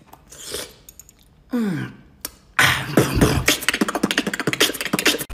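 Human beatboxing: rapid mouth-made drum beats with dense clicks and hissing hi-hat sounds, starting about two and a half seconds in. Before it comes a short vocal groan falling in pitch.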